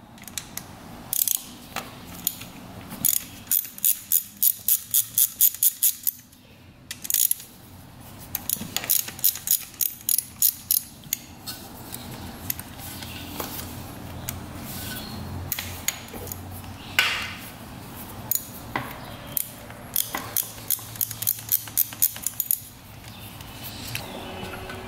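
Ratchet wrench clicking in several runs of quick, even clicks while the bolts of a 1998 Kawasaki KX125's intake manifold and reed valve block are turned out.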